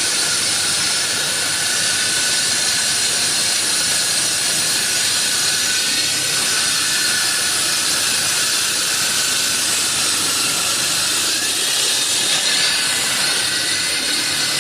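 Concrete-cutting saw running steadily through concrete: a loud, even grinding hiss with a faint high whine held through it.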